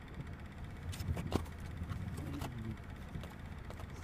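A vehicle's engine idling steadily, heard from inside the cab, with a few light clicks and knocks about a second in and again after two seconds.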